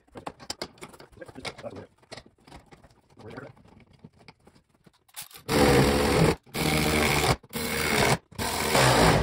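Power drill running in four short bursts from about halfway through, driving the screws that fasten a cardboard template to the seat rails, after some light handling clicks and rustles of the cardboard.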